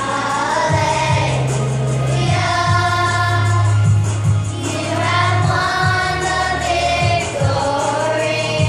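Children's choir singing together over instrumental accompaniment with a low bass line and a steady beat.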